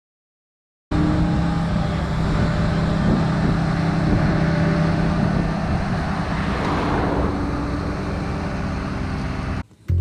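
Diesel farm machinery running steadily, an engine hum under a noisy mechanical rumble. It starts abruptly about a second in and cuts off just before the end.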